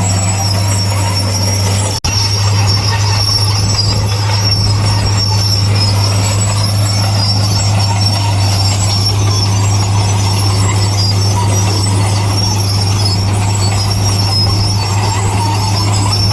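Heavy earthmoving machinery running steadily: a low engine drone with a continuous high-pitched squeal over it, typical of crawler tracks. The sound drops out for an instant about two seconds in.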